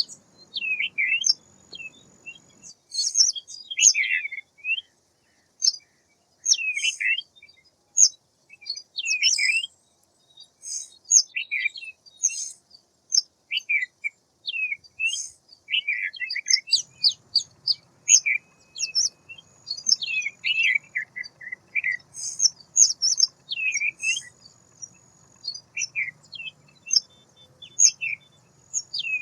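A small songbird chirping and twittering: quick high notes that slide downward, in busy clusters about every second, with a few thin held whistles.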